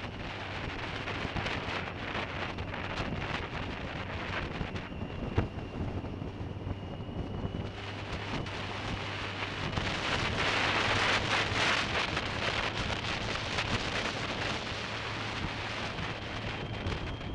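Wind buffeting the action camera on a moving 2005 BMW K1200S, with the bike's inline-four engine running steadily underneath. The wind rush grows louder about ten seconds in, and there is a single sharp tap about five seconds in.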